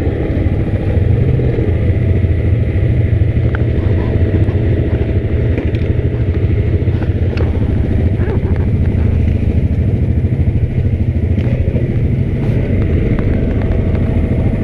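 Yamaha Grizzly 700 ATV's single-cylinder engine running steadily under way on a trail, with a few light clicks and knocks.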